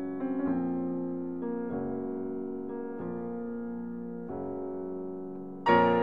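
Background piano music: slow held chords that change every second or so, with a louder chord struck near the end.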